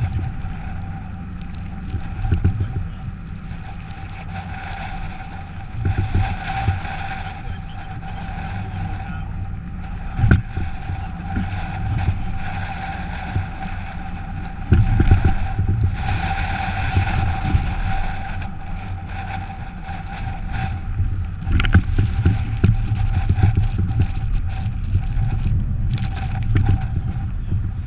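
A Ford Crown Victoria driving on snowy roads: a steady low rumble of road and running noise with a thin, steady whine above it, broken by a handful of sharp thumps as the car jolts over bumps.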